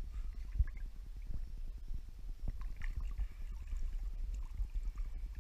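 Pool water lapping and sloshing right at the microphone, over a steady low rumble.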